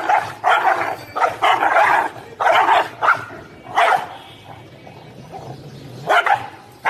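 Dog barking repeatedly: a quick string of about eight barks over four seconds, a pause of about two seconds, then another bark near the end.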